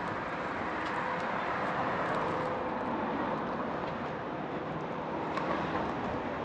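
Steady street traffic noise: passing road vehicles as an even rushing hum, with a faint steady tone underneath.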